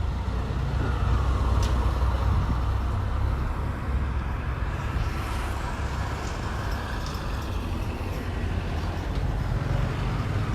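A motor engine running steadily, a low rumble with road or water noise over it.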